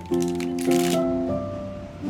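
Background music: sustained chords whose notes change about every half second, with a hissy shaker-like rattle over the first second.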